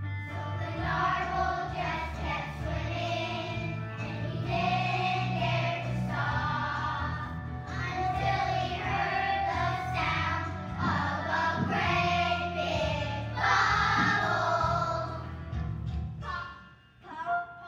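A chorus of young children singing a song together over an instrumental accompaniment with a steady bass line; the song ends near the end.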